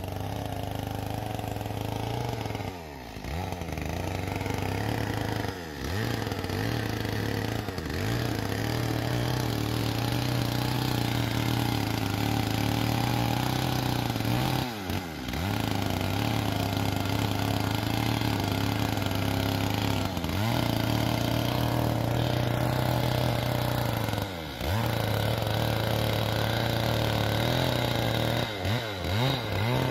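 Chainsaw running at high revs, cutting lumber; the engine note dips briefly and comes back up about seven times.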